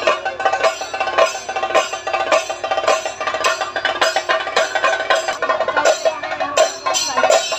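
Kerala temple percussion music: fast, dense drum strokes under a steady metallic ringing, with no singing.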